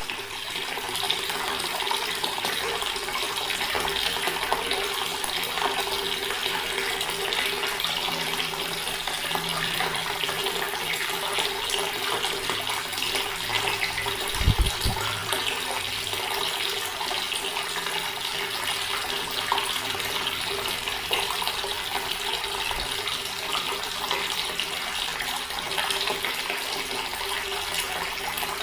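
Water running steadily from an outdoor tap and splashing, with a faint steady hum under it. A brief low thump comes about halfway through.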